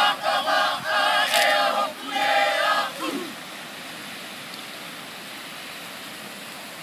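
A group of voices chanting loudly in unison for about three seconds, in held syllables. The chant then stops, leaving the steady wash of surf breaking on the shore.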